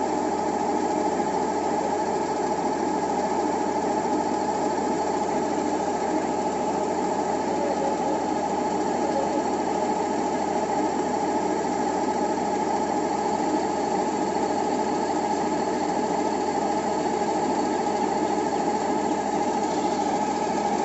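Kubota crawler combine harvester running steadily, its diesel engine and machinery working while the unloading auger discharges grain, with a steady whine over the engine's drone.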